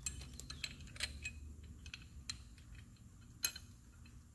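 Scattered light metallic clicks and taps of a steel bolt and mounting bracket being handled and started by hand into the engine block, with one sharper click about three and a half seconds in.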